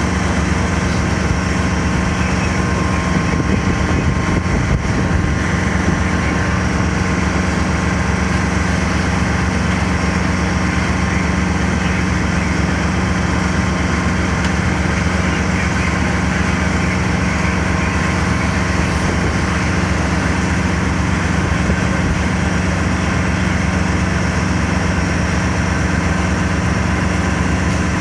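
An engine running at a steady idle, with an even hum that does not change throughout.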